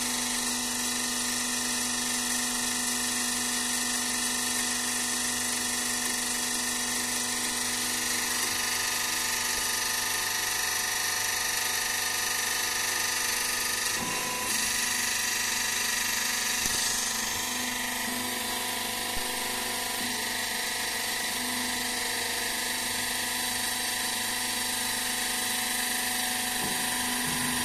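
Hydraulic power unit of a plate hydraulic flipping machine running with a steady whine of several held tones while the flipping frames tilt up towards vertical. There is one faint knock about halfway through.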